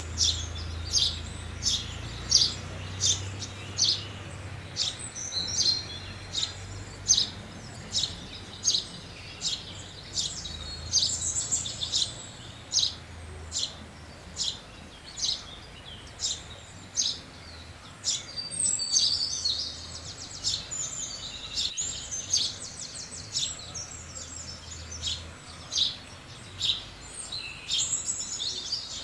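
House sparrows chirping: short, high chirps repeated about twice a second, with stretches of faster twittering in between.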